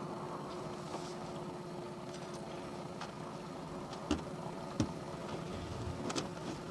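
A boat motor running steadily at low speed, with a few sharp clicks or knocks: one about four seconds in, one just before five seconds, and a pair near the end.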